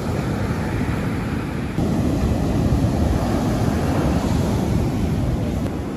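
Ocean surf breaking and washing on the beach, with wind rumbling on the microphone; the noise gets a little louder about two seconds in.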